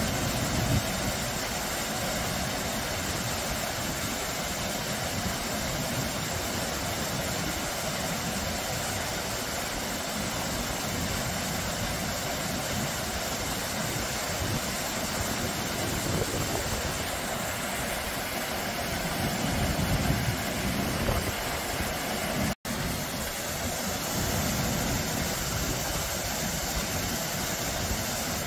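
Water of a small, low waterfall spilling over rocks into a shallow stream: a steady rushing noise that cuts out for an instant about three quarters of the way through.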